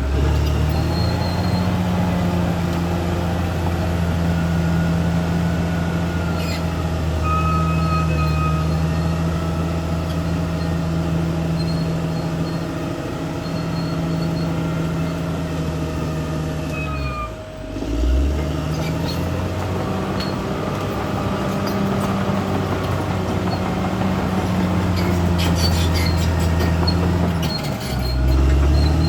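CAT D6R XL bulldozer's diesel engine running steadily, with faint high squeaks over it. The engine note sags sharply and picks up again about two-thirds of the way through, and once more near the end, as the engine is pulled down under load.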